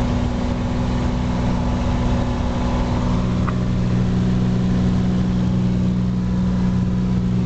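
Cessna 182's piston engine and propeller running steadily at power during the climb-out after takeoff, heard as a loud, even drone inside the cabin. The note thickens slightly about three seconds in.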